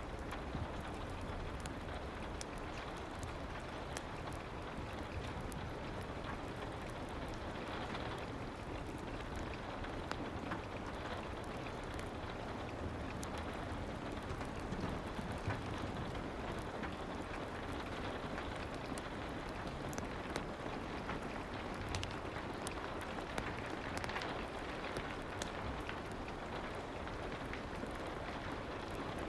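Steady soft rain, with scattered small crackles and pops from a fireplace.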